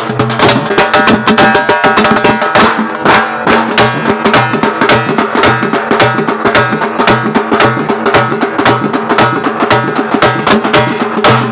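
Loud procession music driven by fast, steady drumming over a repeating bass line.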